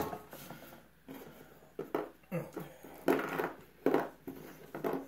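Small metal carburetor parts, such as jets and screws, being handled and set down on cardboard: a handful of light clicks and rustles at uneven intervals.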